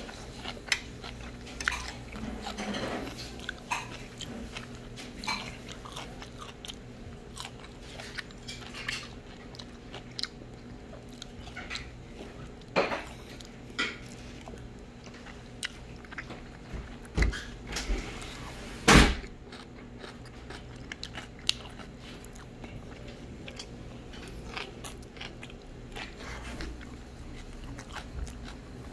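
A person eating and chewing a meal, with biting and crunching sounds. Scattered sharp clicks and knocks run through it, and the loudest is a knock about two-thirds of the way in.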